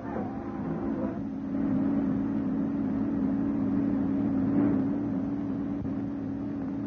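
Car engine running at a steady pace, an even low drone with no change in pitch, on an early sound-film soundtrack.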